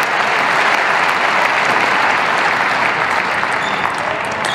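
Crowd applauding a won point in a table tennis match, a dense, even clapping that eases off slightly toward the end.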